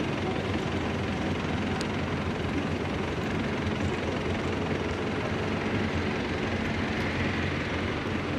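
A heavy vehicle's engine running steadily, a dense, even noise with a strong low end.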